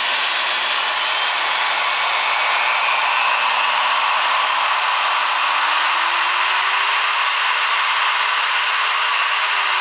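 Milwaukee 4204-1 magnetic base drill press motor running in reverse over a steady rushing noise. Its whine rises steadily in pitch for about seven seconds as the variable speed control is turned up, holds at top speed, then starts to drop right at the end.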